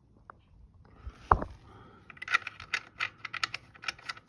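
A single knock about a second in, then a ratchet wrench clicking in quick, irregular runs as the engine oil drain plug is put back in.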